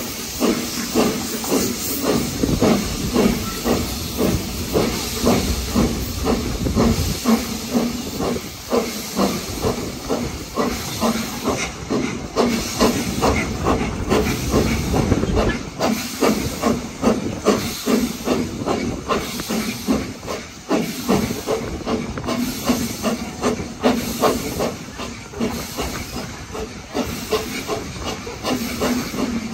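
BR Standard Class 4MT 4-6-0 steam locomotive working hard up a steep gradient: a steady, rapid rhythm of exhaust chuffs with a hiss of steam, heard from a carriage behind it.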